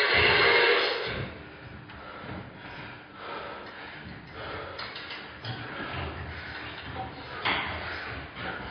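Kipping pull-ups on a wall-mounted bar: low knocks and rattles from the bar about once a second as the body swings, with one sharper knock near the end. Music is loud for the first second, then drops back behind.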